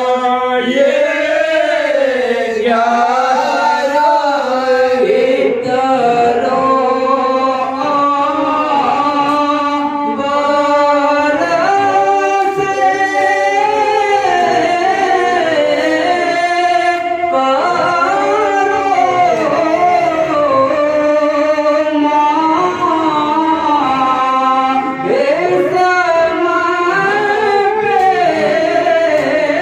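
A man singing a solo devotional song into a handheld microphone, in long drawn-out melodic lines with held, wavering notes.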